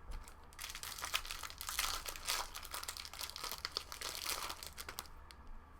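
Foil wrapper of a 2016 Bowman Jumbo baseball card pack crinkling and tearing as the pack is opened, a dense run of crackles lasting about four and a half seconds.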